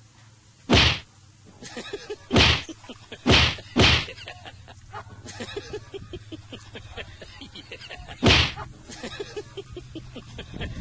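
A cat hissing at a dog in short, sharp bursts, five times, twice in quick succession about three and a half seconds in. Faint crackling and scuffling fill the gaps.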